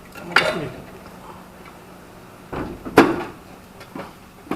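A few sharp metallic knocks and clunks, the loudest about three seconds in, from the gearbox being worked into place against the engine of a VAZ 2115 on a lift.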